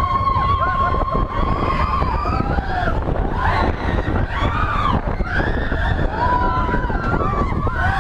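Mine-train roller coaster running along its track with a steady rumble, heard from a seat on the train, while riders shout and whoop over it. A long, steady high squeal runs through the first two seconds.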